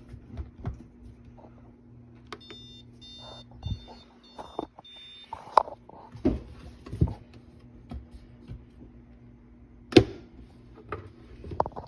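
Drip coffee maker beeping: a run of short, high electronic beeps lasting about three seconds, starting about two seconds in. Scattered clicks and knocks of handling come through, with a sharp knock near the end, and a low steady hum runs underneath.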